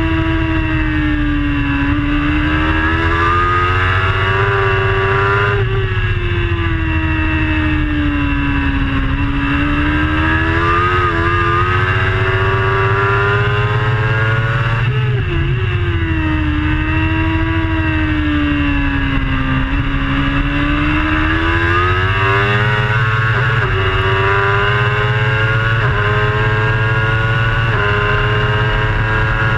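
Racing superbike's engine heard from its own onboard camera, the pitch sinking into the slower corners and climbing out again, with a quick run of upshifts near the end. Steady wind and road rush runs underneath.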